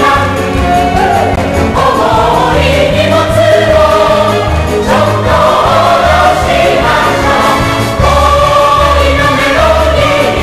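Stage-musical finale: the full cast singing together in chorus over orchestral accompaniment, with long held notes and a steady pulsing bass.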